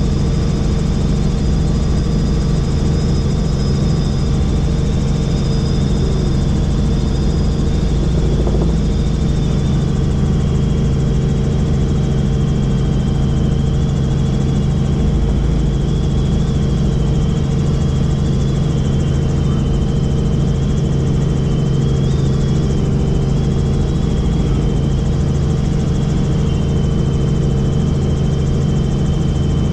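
Helicopter in flight: steady rotor and engine noise with a high whine that drops slightly in pitch about a third of the way through and then wavers a little.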